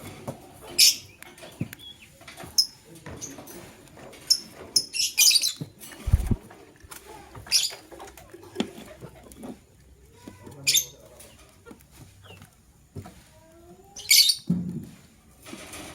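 Lovebirds giving short, sharp, high-pitched chirps every second or two, with a couple of low thumps and some wing flapping in between.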